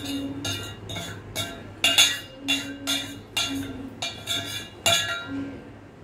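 Steel kitchen utensils clinking against each other: sharp ringing clinks, about two a second.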